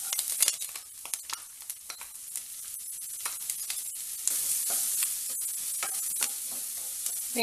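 Chopped onions and curry leaves sizzling as they go into hot oil with garlic and fennel seeds, while a spatula stirs and taps against the pan. The sizzle grows louder about four seconds in.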